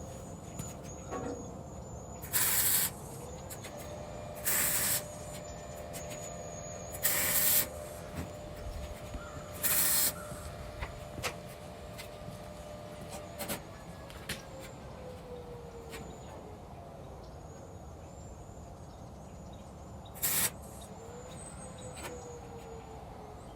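Short bursts of MIG tack welding on 3/16-inch steel grill parts: four welds of about half a second to a second each, roughly two and a half seconds apart, and one more near the end.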